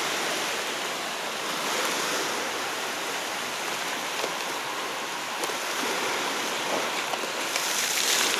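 Sea waves washing, a steady rushing hiss that swells a little near the end, with a few faint clicks.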